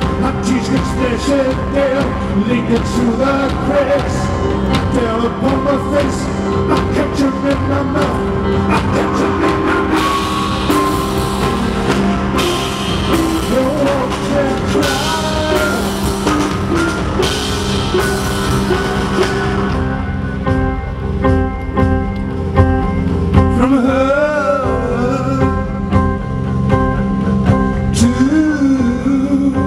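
Live rock band playing, with drums and a male lead voice singing. About twenty seconds in, the cymbals drop out, leaving held tones under the voice.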